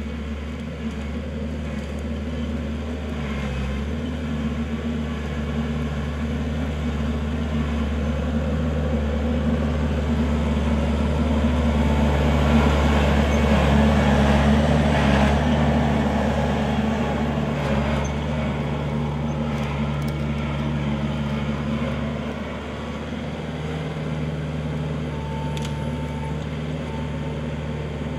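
Kubota L4400 tractor's diesel engine running steadily, growing louder toward the middle and easing off again.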